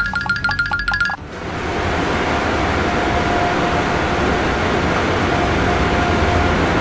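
Cartoon car-wash machine sound effect: a rapid run of short electronic beeps that stops about a second in, then a steady rushing noise like a blower drying the car.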